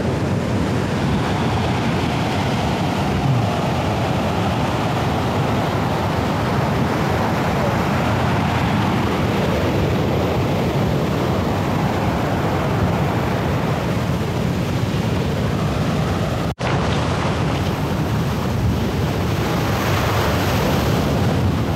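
Ocean surf breaking on the shore, a steady wash of waves. The sound drops out for an instant about three-quarters of the way through.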